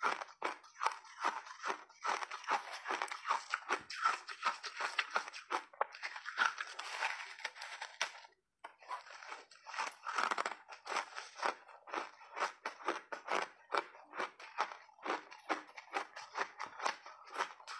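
Close-miked crunching and chewing of a frozen block of mixed berries and ice: a fast, unbroken run of crisp cracks, with one short break about eight seconds in.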